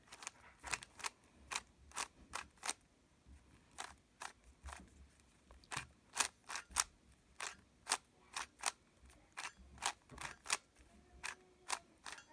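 Plastic 3x3 puzzle cube being turned by hand: sharp clicks of the layers snapping round, in quick irregular runs of a few turns a second, as the last steps of a solve are done.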